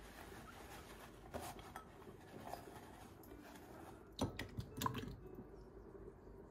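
Faint clicks and knocks of glassware being handled on a kitchen counter, with a quick cluster of sharper clinks about four seconds in.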